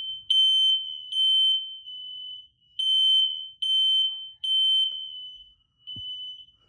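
Piezo smoke alarm sounding its temporal-three evacuation pattern while in test: groups of three half-second high beeps, then a pause, with fainter beeps toward the end. A short low knock comes about six seconds in.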